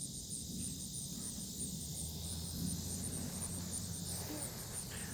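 Insects chirping steadily in a high, evenly pulsed trill, with a low rumble underneath.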